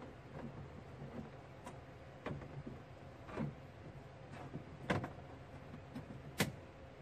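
Hard plastic interior trim panel of a Toyota Corolla AE86 knocking and clicking as it is fitted and pressed into the rear quarter by hand: a handful of separate knocks, the two loudest near the end.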